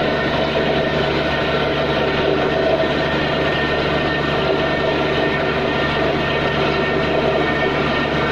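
Borewell drilling rig running steadily as it drills: a loud, even machine din with a stack of steady engine tones and no change in pitch or level.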